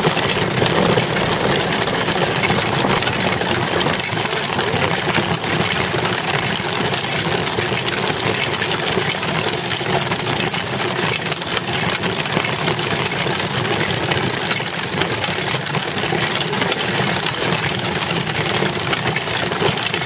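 Steady rushing noise of wind on the microphone and a small bicycle tyre rolling over asphalt, picked up by a camera mounted on the moving bike.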